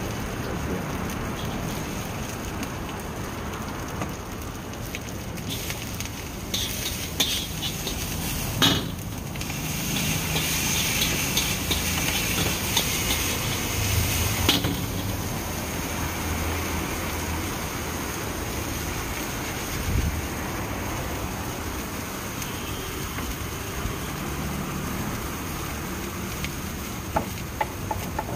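Stir-frying in a large iron wok over a gas burner: steady burner noise and sizzling food. A metal spatula clanks and scrapes against the wok, busiest in the middle stretch, where the sizzle turns brighter as the cabbage and vegetables are tossed.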